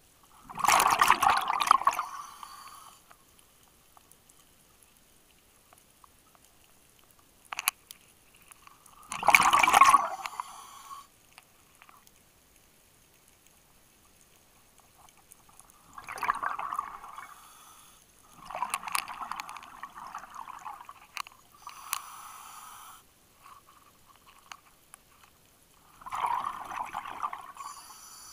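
Scuba diver's exhaled breath bubbling out of the regulator underwater: gurgling bursts one to three seconds long, repeating every several seconds with each breath.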